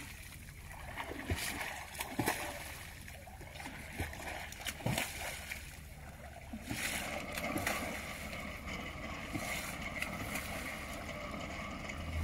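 Small splashes and water lapping at the surface as a shoal of small fish snaps at floating bread beside a boat, heard over a low steady hum.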